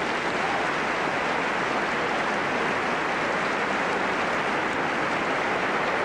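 Large audience applauding, a dense, steady clapping.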